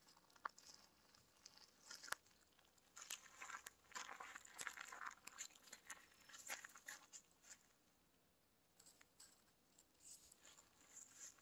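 Faint crunching and rustling of a cat's paws scrabbling over gravel and dry leaves as it pounces into ferns. It comes in sharp ticks and crackly bursts, thickest around the middle and again near the end.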